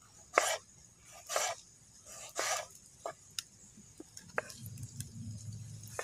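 Kitchen knife slicing through tomatoes and meeting a wooden cutting board: three separate cuts about a second apart, then a few sharp light ticks. A low hum comes in near the end.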